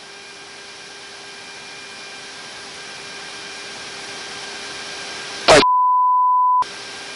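Steady hiss with a few faint even hums from the patrol aircraft's cabin audio, slowly growing louder. About five and a half seconds in comes a brief click, then a steady one-second beep, with the hiss cut out completely beneath it.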